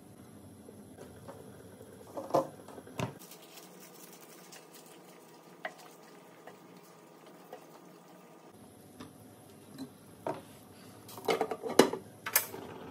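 Cooking utensils against a Carote pot: a few scattered knocks of a ladle against the pot as cabbage is stirred into the simmering soup, then a louder clatter near the end as the glass lid is set on the pot.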